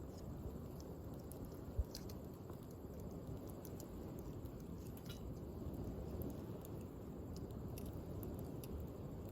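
Small wood fire crackling in a Firebox G2 folding stove: scattered faint pops and snaps over a steady low background noise.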